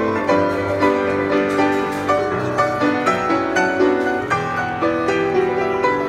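Yamaha grand piano played live: a melody over sustained chords, with new notes struck at a steady pace of about two a second.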